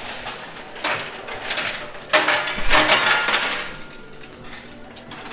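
Coin pusher machine: metal coins clinking and clattering as the pusher shelf moves them, with a burst of rapid clinks about two seconds in lasting over a second.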